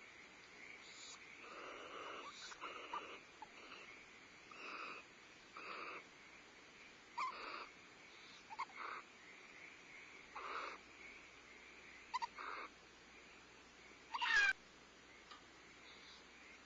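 Barn owls in a nest box giving short raspy hissing calls, about one a second. About fourteen seconds in there is one loud, brief screech that sweeps down in pitch.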